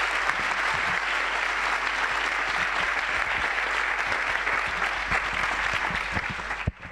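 An audience clapping steadily after a talk, the applause cutting off abruptly near the end.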